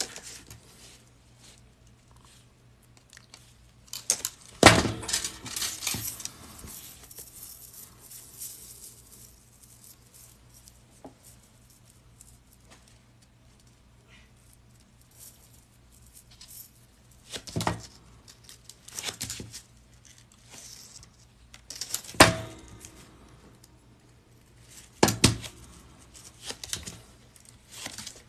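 Metal jump rings and a chainmail weave clinking and jingling as they are handled, with pliers clicking on the rings. The sound comes in scattered bursts with quiet stretches between them, the loudest a few seconds in.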